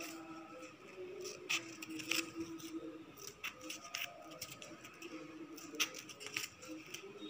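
Scissors snipping through a glitter foam sheet: a series of separate, irregularly spaced cuts.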